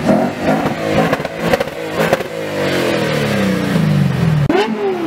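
High-performance car engine at full throttle, with a few sharp cracks from the exhaust, then the engine note falling steadily as it lets off. Near the end it cuts to another engine revving up and down in quick blips.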